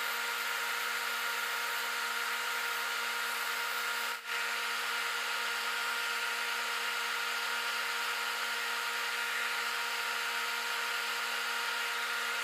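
Wood lathe running at a steady speed with the workpiece spinning: a steady motor hum with a higher whine over an even hiss. There is a brief dip about four seconds in.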